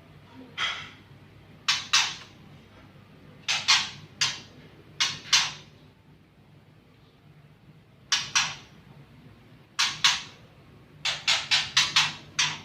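Caged songbirds giving short, harsh 'cik' calls, singly and in pairs, then a quick run of about six near the end.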